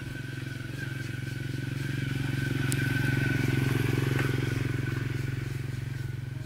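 A motor vehicle engine passing by: a steady low engine drone that grows louder toward the middle and then fades.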